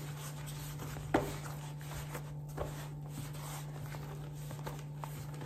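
Hands kneading soft dough in a plastic bowl: quiet squishing and pressing with a few light knocks, the clearest about a second in, over a steady low hum.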